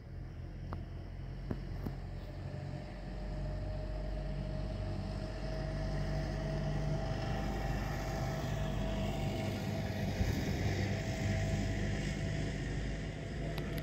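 A motor vehicle engine running steadily with a low hum, growing louder over the first several seconds and then holding steady.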